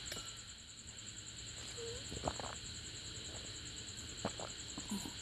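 Faint mouth and swallowing sounds of someone drinking juice from a glass: a few soft clicks and gulps over a steady low hiss.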